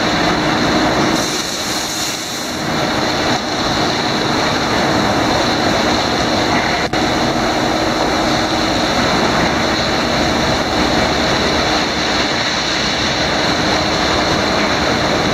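PECO tunnel car wash running: tall rotating wraparound brushes wash a car on the conveyor amid water spray, giving a loud, steady wash of noise with a constant machine hum.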